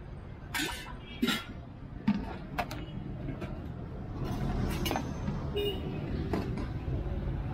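Scattered clinks of steel serving ladles and spoons against steel pots and bowls as biryani is dished out, about eight sharp clinks over a steady low rumble.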